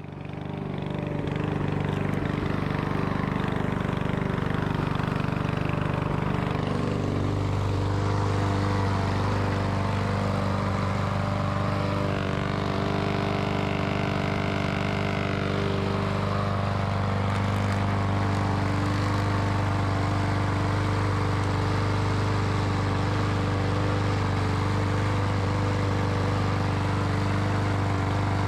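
A lawnmower's small gas engine running steadily at a constant speed.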